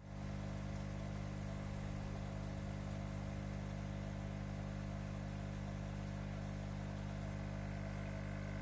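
Aquarium pump humming steadily.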